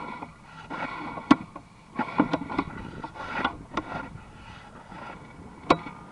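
A handful of sharp, irregular clicks and knocks, with rough scraping noise between them; the sharpest knocks come about a second in and near the end.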